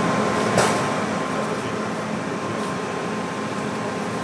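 Steady machinery hum of a steel fabrication hall with a faint steady whine, and one short sharp click about half a second in.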